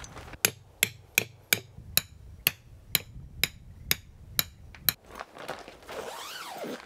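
A hammer driving a stake into hard ground at the base of a tent wall: about eleven sharp, ringing strikes, roughly two a second, stopping about five seconds in. A softer rustle follows near the end.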